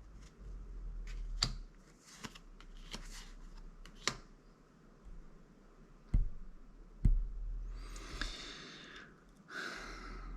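Trading cards being handled on a table: scattered light taps and clicks, then two brief sliding rustles near the end.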